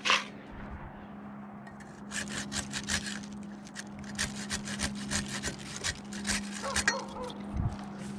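A hand pruning saw cutting a tree limb: quick back-and-forth strokes start about two seconds in and run at roughly three strokes a second. A steady low hum runs underneath.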